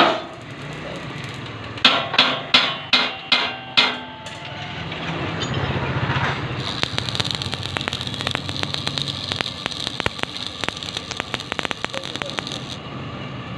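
Six ringing hammer blows on metal, then an electric arc welder crackling and sizzling steadily for about six seconds before it cuts off suddenly.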